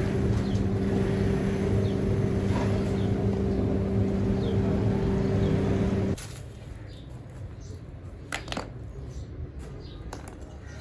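A steady machine hum with a low drone that stops abruptly about six seconds in. Then it is quieter, with a few short, sharp sounds.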